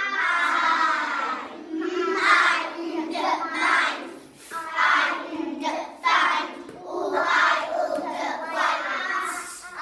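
A class of young children singing a phonics song together in unison, in short phrases.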